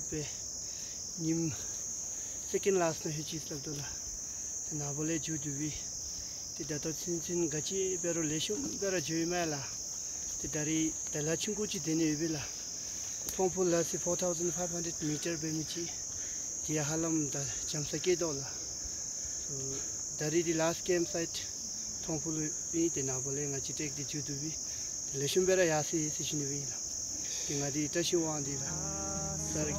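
Insects droning in a forest: one unbroken high-pitched chorus, with a man talking over it.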